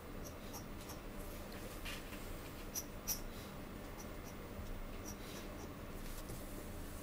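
Dip pen nib scratching on paper in short, quick inking strokes, heard as scattered small scratchy ticks, with a couple of sharper scratches about three seconds in. A faint steady low hum runs underneath.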